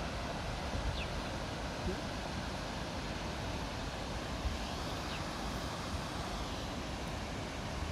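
Steady rushing of river rapids in the gorge below, with wind buffeting the microphone in an uneven low rumble.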